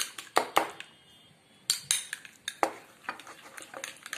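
A metal spoon stirring thick mayonnaise-and-sauce mix in a small ceramic bowl, clinking sharply against the bowl's sides at irregular moments, with scraping in between.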